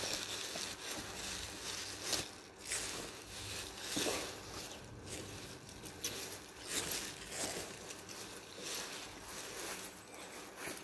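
Gloved hands pulling weeds out of sandy soil: rustling leaves and scraping, crunching soil in irregular bursts a second or so apart.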